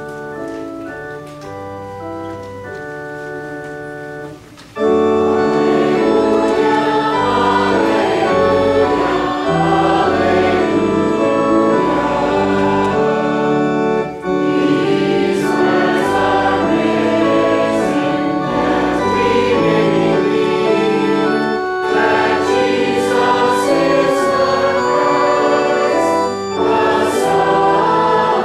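Organ playing held chords alone and fairly quietly, then about five seconds in it gets louder as voices join in singing with it.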